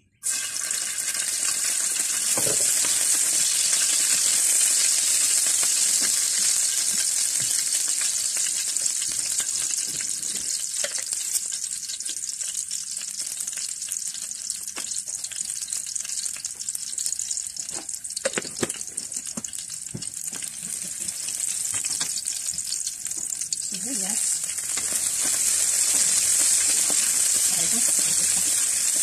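Sliced garlic sizzling loudly in hot oil in a wok, stirred with a wooden spatula. The sizzle starts abruptly, eases a little midway, swells again near the end, and a few knocks of the spatula are heard about two-thirds of the way through.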